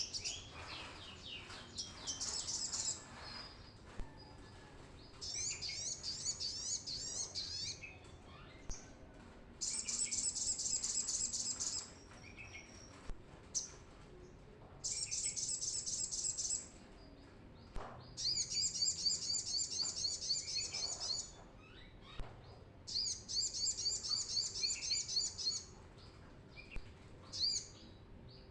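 Brown-throated sunbird (kolibri kelapa) singing in full voice: high, rapid trilled phrases of two to three seconds each, repeated with short pauses between them.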